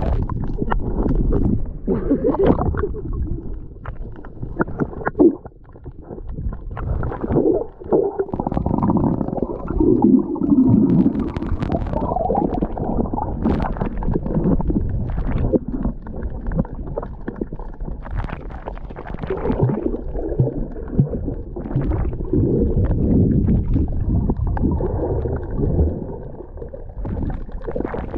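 Muffled underwater sound of water moving around a submerged camera: a low rumble and gurgling, with scattered short clicks and knocks.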